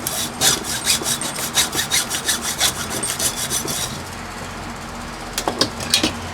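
Hacksaw cutting through a small transformer clamped in a vise, in quick strokes about three a second. The sawing stops about four seconds in, and two short knocks follow near the end.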